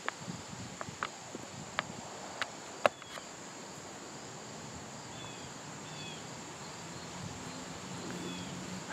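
Steady high-pitched trill of crickets, with several sharp clicks and snaps in the first three seconds, the loudest about three seconds in, and a few short faint chirps later on.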